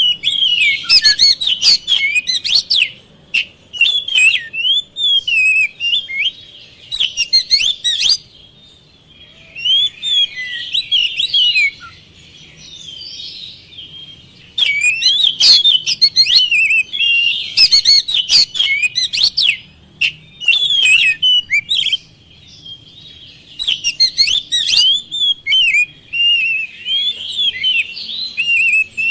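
Oriental magpie-robin (kacer) singing in full voice: loud bursts of rapid, varied whistles and sharp clipped notes, broken by short pauses filled with softer warbling.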